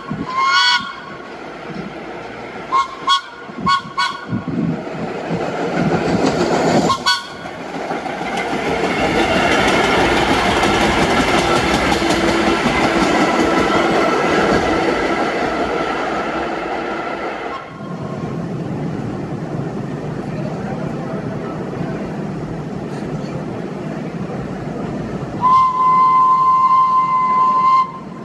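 BMT Standard subway train sounding several short horn toots, then running with a loud steady noise of wheels and motors, and ending with one long horn blast.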